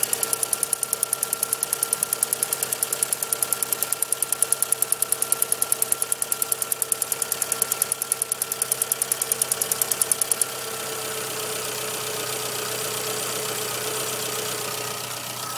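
1997 Suzuki Swift 1.3L four-cylinder engine running with a loud, rapid, even ticking, several ticks a second. About ten seconds in the ticking cuts off suddenly, leaving the engine running steadily with a faint whine.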